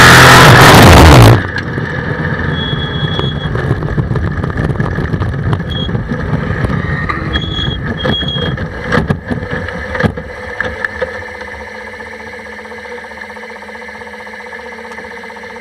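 Suzuki Hayabusa 1300 inline-four motorcycle engine in a race car, running loud at high revs, then cutting off suddenly about a second in as the engine fails. The car then rolls on without drive over grass, rattling, with a few short high beeps and several sharp knocks, settling to a quieter steady hum near the end.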